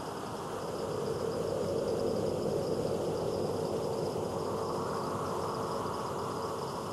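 Steady night-time ambience: a thin, even high chirring like insects, over a lower rushing drone that swells about a second in.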